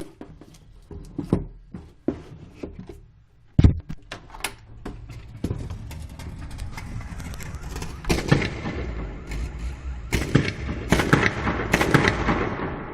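Russian-made car's engine coughing: a string of irregular sharp bangs over rough running, which grows louder about five seconds in, with the bangs coming thick and fast near the end.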